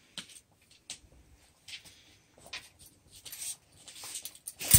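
A dog eating a small cupcake-style treat off a paper plate on a tile floor: scattered soft clicks and brief scraping and scratching as it works at the plate, with one sharp knock right at the end.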